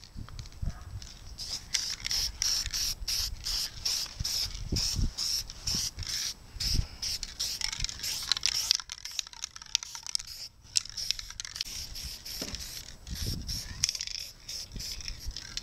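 Aerosol can of gold metallic spray paint being sprayed in quick repeated spurts, a pulsing hiss about three or four times a second.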